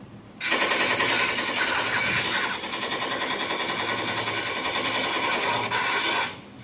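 Electronic sound effect from a battery-powered combat soldier toy: a loud, rapid rattle like machine-gun fire from a small speaker. It starts suddenly about half a second in and cuts off about six seconds later.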